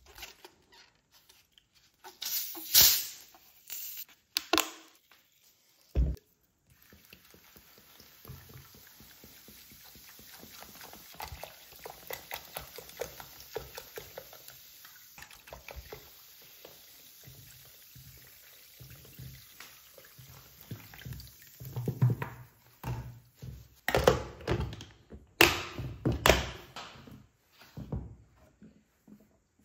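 Carbonated tonic water poured from a plastic bottle into a glass dish, splashing and fizzing steadily for about fifteen seconds. Before the pour there are a few sharp handling noises and a single knock; near the end a plastic container lid clacks and snaps several times as it is fitted over the dish.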